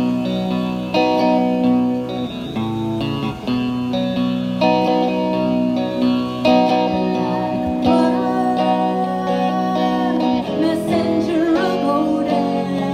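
Guitar music: plucked notes that start sharply and ring on, carrying a melody over sustained low notes.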